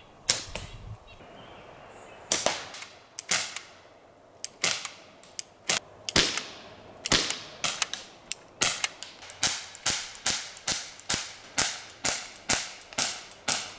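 Sharp cracks of target shooting with a BB pistol and a slingshot: a few scattered shots at first, then about halfway through a quick, even string of BB pistol shots, about two or three a second.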